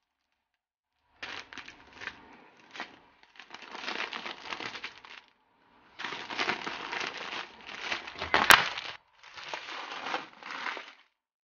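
Plastic wrapping being crinkled and peeled off a product box, in several crackly stretches, with one sharp click about eight seconds in.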